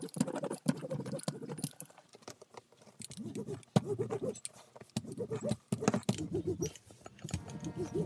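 A small metal hand tool rubbed quickly back and forth along a bag strap, making a run of uneven scraping strokes with sharp clicks. Music comes in near the end.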